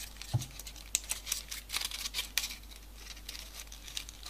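Folded paper origami modules crinkling and rustling as fingers press a paper leg piece onto the bear's body, a scatter of small crisp ticks. A soft low bump comes shortly after it begins.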